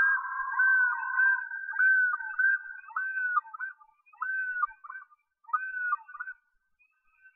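Common loon (great northern diver) calling: a run of clear, pitched, up-and-down notes repeated about every half second, growing fainter and stopping about six seconds in.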